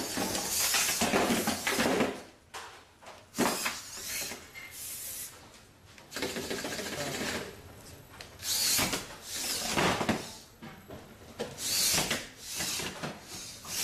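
Bioloid GP humanoid robots sparring: their Dynamixel AX-18A servos and aluminium frames make irregular bursts of mechanical noise, with knocks as the robots strike and fall against the table.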